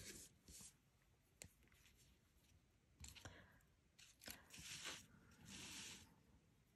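Near silence with faint paper handling: cardstock cards brushed and slid on a craft mat, a few short soft rustles and one light click about a second and a half in.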